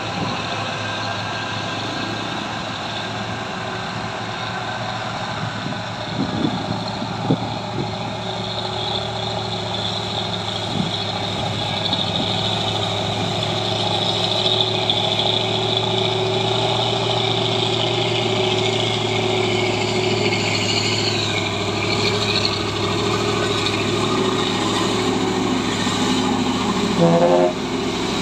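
Heavy dump truck's diesel engine labouring at low revs up a steep grade, a steady drone that grows louder as the truck draws near. A short, louder burst comes near the end as it passes close by.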